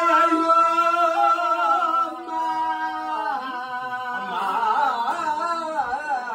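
A woman singing a mournful Tamil lament for the dead, a daughter's lament: one long held note for about three seconds, then a lower, wavering line.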